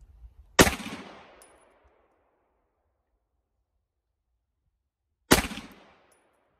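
Two 9mm pistol shots, Winchester 115-grain ball, fired deliberately about four and a half seconds apart. Each shot is a sharp crack followed by a short echoing tail.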